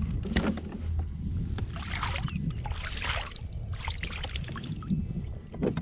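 Water splashing and sloshing at the side of a fishing kayak, a few splashes about a second apart, over a low rumble of wind on the microphone.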